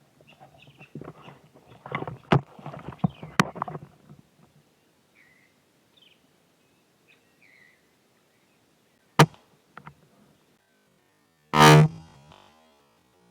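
Rustling and handling noise with sharp clicks, a few faint high bird chirps, then one loud sharp shot about three-quarters of the way through.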